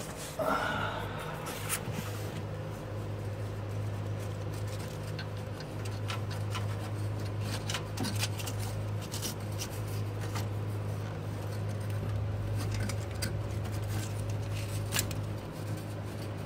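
Small clicks, taps and scrapes as parts are worked loose by hand on a car's steering column, over a steady low hum. A short squeak comes near the start.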